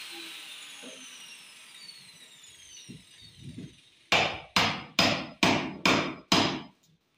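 Hammer striking a chisel into the fibreglass-sheathed wooden planking of a boat hull, cutting through it: a few light taps, then six hard strikes about half a second apart.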